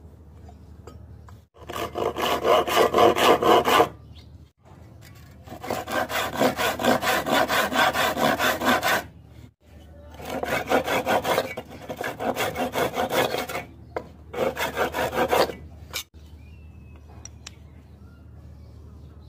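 Hand saw cutting through a pine board in quick back-and-forth strokes, about four a second, in four bouts with short breaks between them.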